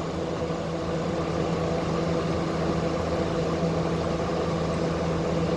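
Air conditioner running: a steady mechanical hum of its compressor and fan, with a constant low tone under it.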